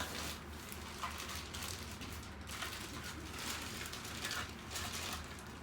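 Packaging rustling and crinkling in irregular bursts as parts are unwrapped and lifted out of a box, over a low steady hum.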